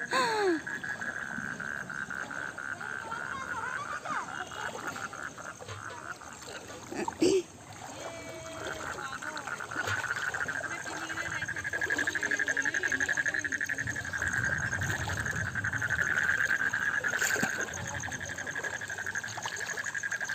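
A chorus of frogs calling: a steady, rapidly pulsing trill that swells louder in the middle and then eases. One short loud noise breaks in about seven seconds in.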